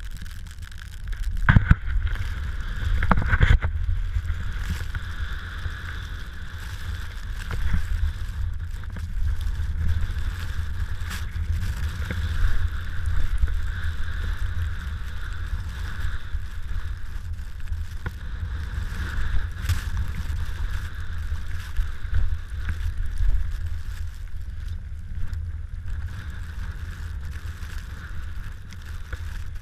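Wind rushing over an arm-held camera's microphone during a fast descent through deep powder snow, with a steady hiss of the snow under the rider. There are two sharp knocks about one and a half and three and a half seconds in.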